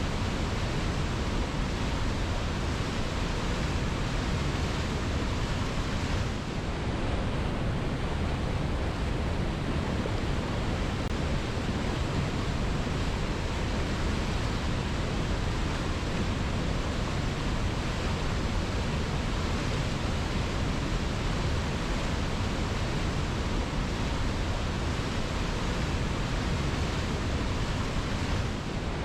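Waterfall rushing steadily, a dense, even roar of falling water from deep rumble to high hiss, with a slight brief dip in level about six seconds in.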